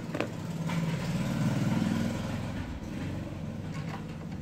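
A motor vehicle engine passing by, swelling to its loudest about a second and a half in and then fading, with a couple of short clicks near the start.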